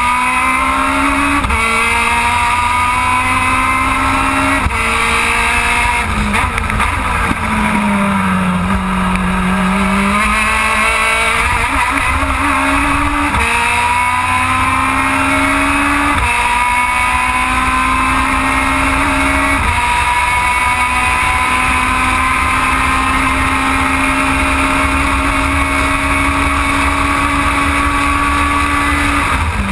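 Aussie Racing Car's Yamaha 1.3-litre four-cylinder engine at race speed, heard from inside the car. It revs up through the gears with quick upshifts, drops in pitch under braking around six to nine seconds in, then climbs again through several upshifts before one long pull in gear near the end.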